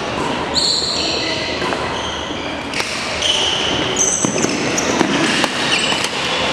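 Badminton doubles rally on a hardwood court: shoes squeaking in short high chirps as the players move, and several sharp racket hits on the shuttlecock in the second half, in a reverberant hall with a murmur of background voices.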